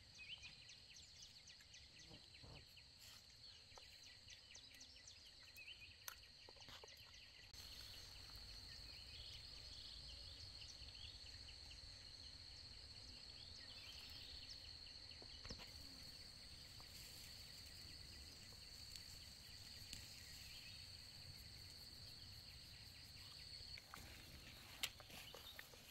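Faint, high-pitched insect trill, steady with a fine rapid pulse. It grows stronger about seven seconds in and stops shortly before the end, with a few soft clicks.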